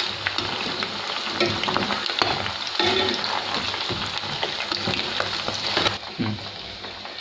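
Marinated chicken pieces deep-frying in hot oil on medium heat, a steady sizzling hiss. A wire skimmer scrapes and clicks in the pan as the pieces are turned. The sizzle drops about six seconds in as the fried pieces are lifted out of the oil.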